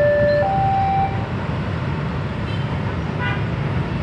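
Railway level-crossing warning alarm sounding its two alternating tones, low then high, and stopping about a second in as the crossing clears. Motorbike engines run steadily underneath, with a short horn toot about three seconds in.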